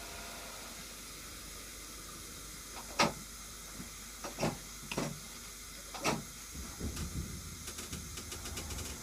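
Metro train standing with a steady hiss, then four sharp knocks over a few seconds, the first the loudest. From about six and a half seconds a low rumble builds with a run of quick clicks as the train begins to roll.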